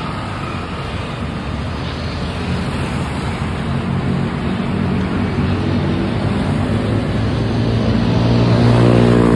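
Continuous rushing wind and movement noise on a handheld phone microphone carried by a runner. A steady low drone builds up about halfway through and is loudest near the end.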